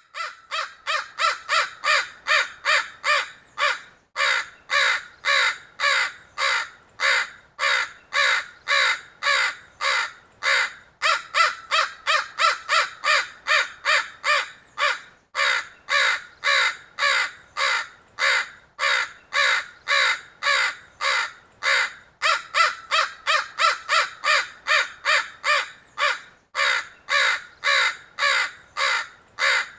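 Crows cawing: a long run of harsh caws, about two a second, broken by short pauses every few seconds.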